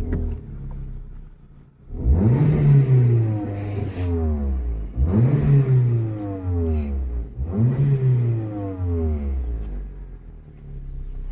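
Hyundai Grand i10's engine blipped three times from idle, each rev climbing quickly and falling away over a couple of seconds, heard from inside the cabin. The exhaust sounds like a sports car's instead of quiet because the silencer pipe has rusted through and come fully open at its joint.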